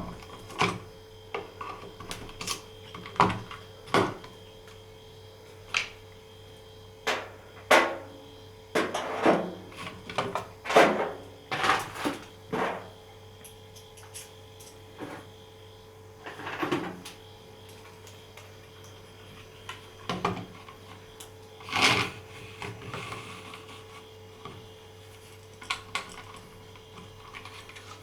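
Irregular clicks and knocks of hard plastic parts and screws being handled while a wireless outdoor alarm siren is put together, busiest in the middle, over a faint steady hum.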